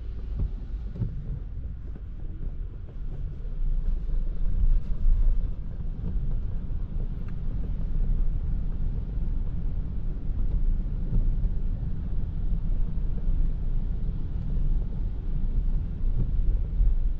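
Toyota Prius α driving on a wet road in the rain: a steady low rumble of tyre and road noise. It gets louder from about four seconds in.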